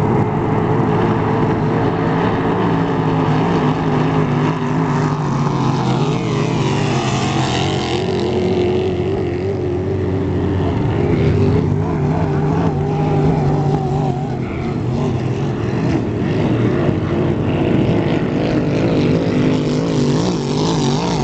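Racing hydroplane engines running flat out, a loud steady drone across the lake. One boat passes close about seven seconds in, its pitch sweeping as it goes by.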